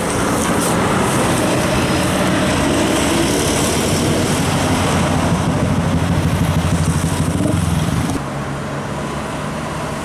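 Tour coach and other vehicles driving past close by, engines running loudly with a throbbing low note. The sound drops sharply about eight seconds in to quieter, steadier road noise.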